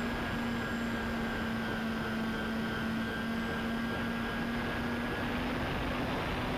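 Twin electric motors and propellers of a Dynam Skybus (DC-3) model plane running at a steady pitch in flight, over a constant rush of wind noise.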